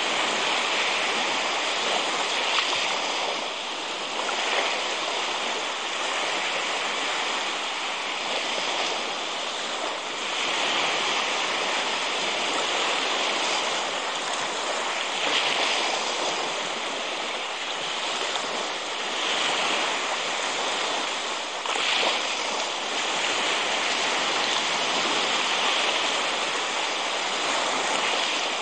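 Small sea waves washing up a sandy shore: a steady rush of water that swells and eases every few seconds.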